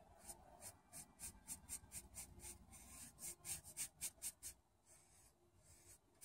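Faint, soft scratching of a soft filbert paintbrush stroking thin paint across a stretched canvas: a quick run of short strokes, about three a second, that pauses about four and a half seconds in and starts again near the end.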